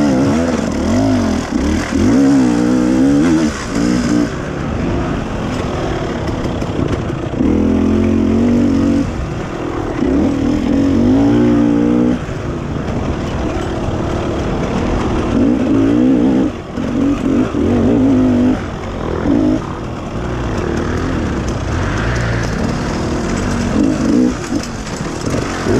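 Dirt bike engine being ridden hard, revving up and falling back over and over as the rider works the throttle and gears, with brief drops where the throttle is shut.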